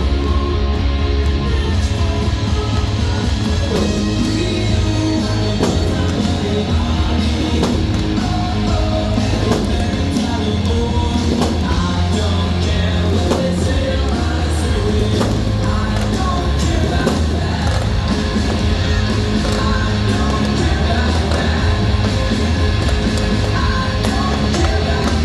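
A rock song with singing, played loud and steady over stadium loudspeakers.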